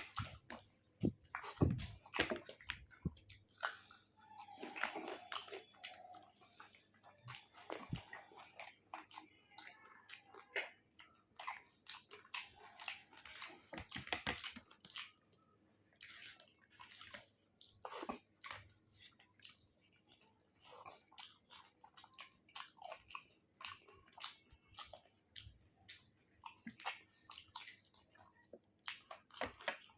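A person chewing and biting chicken curry and rice close to the microphone, with irregular wet mouth smacks and occasional crunches.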